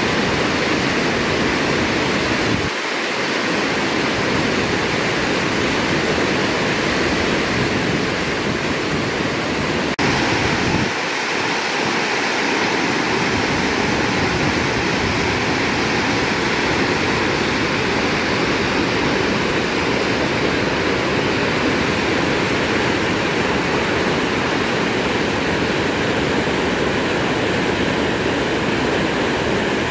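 Whitewater cascading over rocks at the feeder into Upper McCloud Falls: a loud, steady rush of falling water. The deepest part of the rumble drops away briefly twice.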